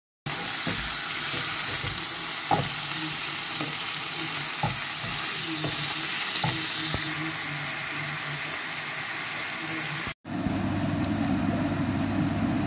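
Food sizzling in hot oil in a frying pan, with a spatula clicking against the pan several times. The sound cuts out briefly about ten seconds in, then the frying resumes.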